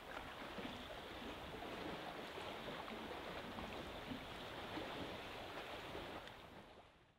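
Faint, steady rush of water, fading out near the end.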